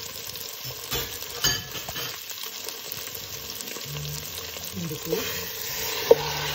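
Chopped leeks, onions and garlic sizzling in oil in a stainless steel pot while a wooden spatula stirs and scrapes them, knocking against the pot a couple of times. A sharp clink near the end as a bowl meets the pot's rim.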